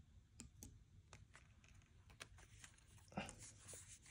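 Faint handling noise: a few soft scattered ticks and a brief rustle about three seconds in, as a card hang tag on a cotton sweatshirt is taken in hand.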